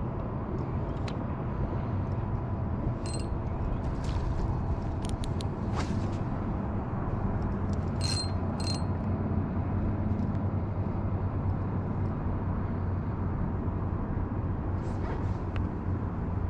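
Spinning reel cranked steadily as a lure is retrieved, its gears and handle turning over a steady low hum. A few sharp clicks come about three seconds in and twice around eight seconds in.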